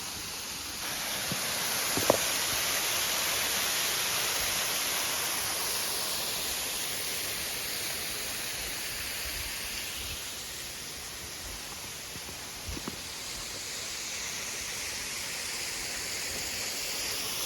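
Waterfall rushing steadily with a full flow, louder about a second in, easing off and then swelling again near the end. Two sharp knocks, the louder about two seconds in, the other late.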